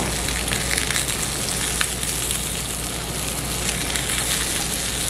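Pork sizzling steadily on a tabletop barbecue grill, with a few sharp pops and crackles of fat.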